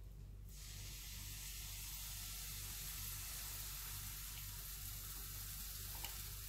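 Pancake batter sizzling in a buttered frying pan. The steady sizzle starts suddenly about half a second in, as the batter meets the hot butter.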